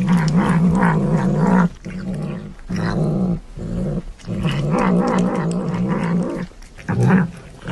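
A cat's low, wavering yowls: a run of long drawn-out calls with short breaks between them.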